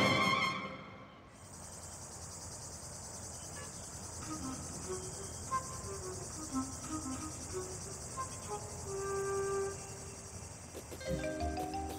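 Music fades out in the first second, then a steady high insect chirring sets in, with a few faint melodic notes over it. Music starts again near the end.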